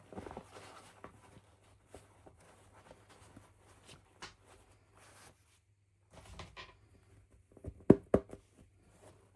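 Hands handling small plastic toys and packaging: intermittent rustling and light clicks, with two sharp knocks close together about eight seconds in.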